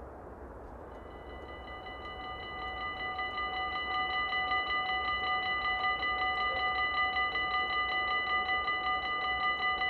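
Dutch level crossing's warning bell starts ringing about a second in, grows louder over the next few seconds, then rings rapidly and steadily: the crossing is closing for an approaching train.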